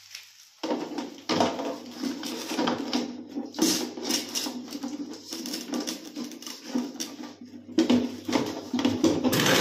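Hollow white plastic toilet cistern and its plastic fittings being handled and fitted: continuous rattling, scraping and knocking of plastic, starting suddenly under a second in, with louder knocks about four seconds in and near the end.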